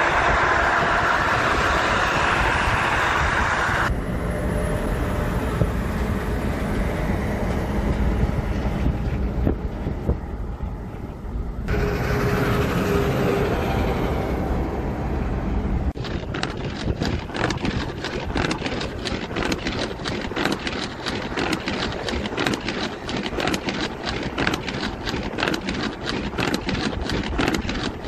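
Heavy highway traffic noise of semi trucks passing close: tyre roar and diesel engine rumble. The sound changes abruptly a few times. In the second half, wind buffets the microphone in rapid gusts.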